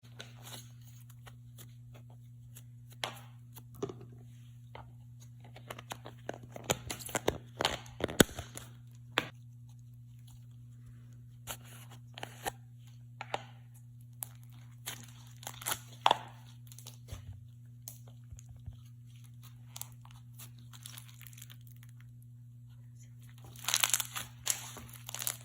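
Clicky slime being stretched and squeezed by hand, giving scattered short sticky clicks and pops that come thickest about a quarter of the way in and again near the end. A steady low hum runs underneath.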